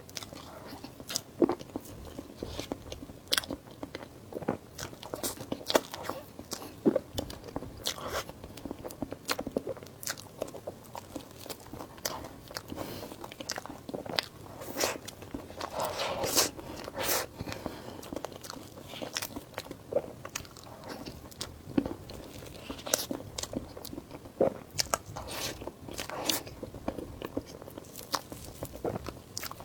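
Close-miked eating: biting and chewing, with many irregular sharp crunches and mouth clicks and a denser run of them about halfway through.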